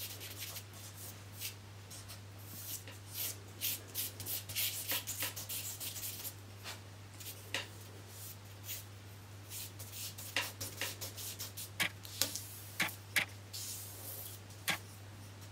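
Stick of charcoal scratching and rubbing across drawing paper in quick, irregular strokes while shading in a dark shadow, over a steady low hum.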